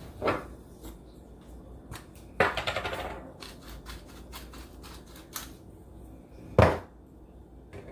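Kitchen handling noises: scattered small clicks and taps, a short dense rasping patch about two and a half seconds in, and one louder knock near the end.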